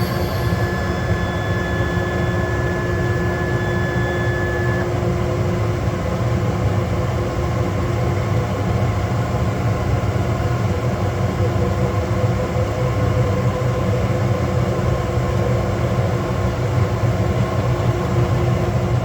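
Cue Demon CNC machine cutting a wooden cue shaft blank from square to round, its spindle running steadily through the pass. A thin high tone in the machine sound stops about five seconds in.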